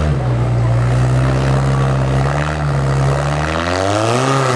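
Off-road trial buggy's engine running under load as it climbs over boulders, holding a steady note and then revving up about three and a half seconds in.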